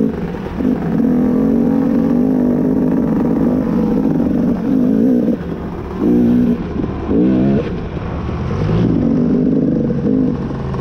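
2018 KTM 250 XC single-cylinder two-stroke dirt bike engine running under way, the throttle opening and closing so the revs dip and climb, with several quick rises in pitch in the second half.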